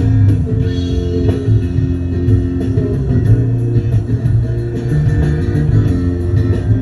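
Live rock band playing an instrumental passage: guitar and bass guitar holding sustained notes over a steady beat of high cymbal-like ticks.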